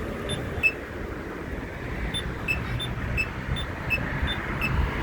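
Short high electronic beeps from a pedestrian crosswalk signal, repeating about three times a second and alternating between two pitches, over steady road-traffic rumble.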